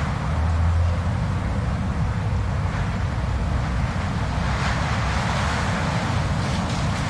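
Blizzard wind blowing steadily, with a deep buffeting rumble underneath and a rushing hiss that swells in a gust a little past the middle.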